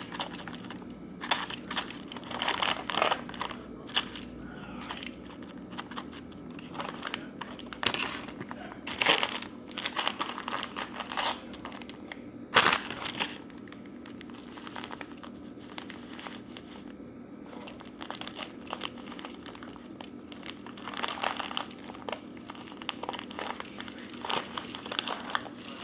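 Instant-oatmeal packets being handled, torn open and crinkled, in irregular spells of crackling and rustling, over a steady low hum.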